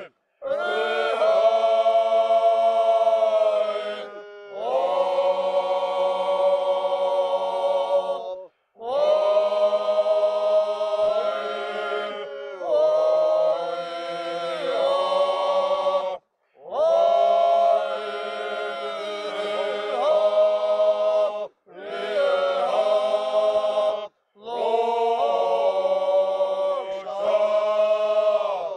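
Men's choir singing a Georgian folk song a cappella in several voice parts, holding long chords. The phrases are broken by short pauses for breath.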